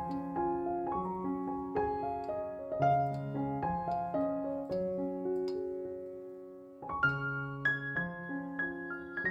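Background piano music: a gentle melody of single notes that fades low about two-thirds of the way through, then starts a new phrase.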